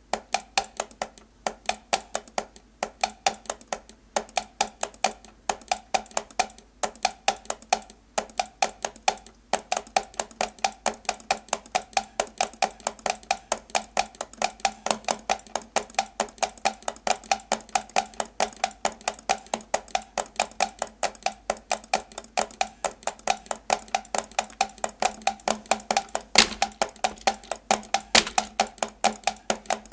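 Rhythmic percussion played on computer keyboards and mouse buttons by three players: fast, steady patterns of key clacks and mouse clicks over a regular pulse, with a couple of louder accents near the end.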